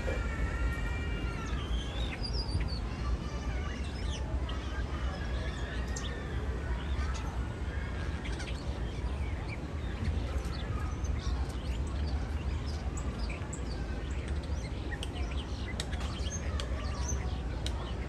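European starling singing: a run of whistled glides and warbling notes in the first few seconds, then a stream of short clicks and chattering notes, over a steady low rumble.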